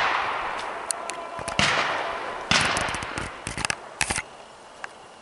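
Shotgun shots across an open field. The long echo of one shot is dying away at the start, then two more shots come about a second apart, each rolling away in a long echo, followed by a cluster of lighter cracks about a second later.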